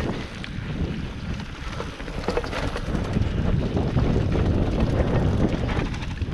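Mountain bike riding fast over a dirt trail: wind buffeting the microphone and the tyres rumbling, with frequent small knocks and rattles from the bike over bumps.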